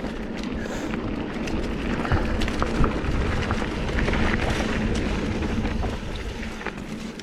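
Mountain bike riding down a loose, dusty dirt trail: wind rushing over the camera microphone and tyres rolling over dirt and stones, with scattered rattles and knocks from the bike. It grows louder toward the middle and eases near the end.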